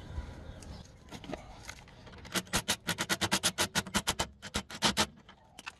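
Ratchet wrench clicking rapidly, about ten clicks a second for nearly three seconds, as it spins a 13 mm nut off a stabilizer bar bushing clamp through an adapter.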